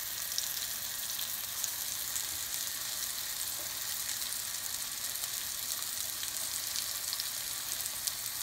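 Onion slices frying in a pan on medium-low heat: a steady sizzle with small crackles.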